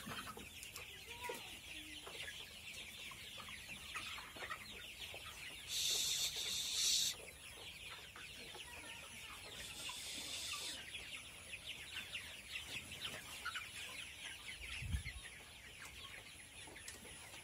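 A large flock of 60-day-old Sonali chickens clucking and cheeping all together in a dense, steady chatter. A brief louder burst of noise comes about six seconds in.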